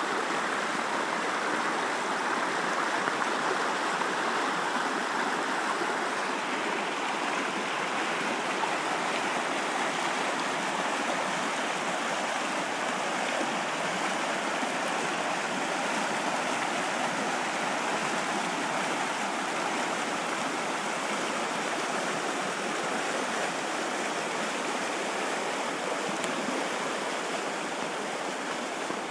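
Fast-flowing river rushing over rapids, a steady loud rush of white water that eases slightly near the end.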